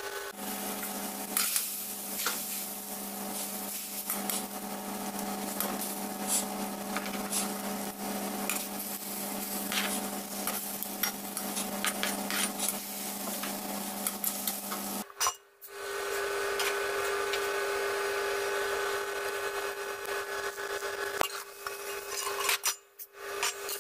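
Seafood cooking in a steel wok: a steady hiss of simmering over a steady hum, broken by clinks of metal tongs and the lid against the pan. The sound cuts out briefly twice, about fifteen seconds in and near the end.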